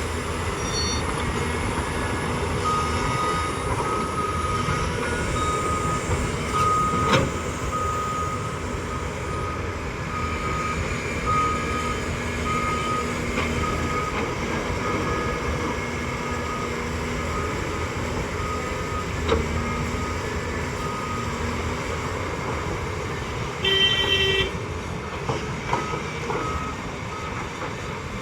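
Volvo excavator and heavy diesel machinery running steadily while loading, with a reversing alarm beeping about once a second through the first half and again briefly near the end. A sharp knock comes about 7 seconds in, another near 19 seconds, and a short horn toot about 24 seconds in.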